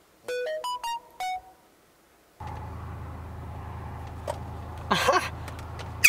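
A short electronic jingle of about five quick notes, then, after a cut, the steady low hum inside a car, with a brief voice near the end.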